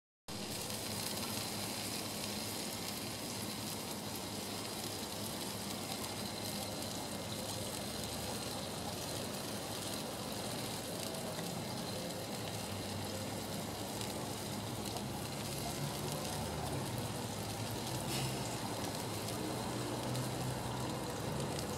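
Skewered, dry-rubbed ribs sizzling on a grill grate: a steady sizzling hiss that starts abruptly a moment in, with a faint low hum underneath.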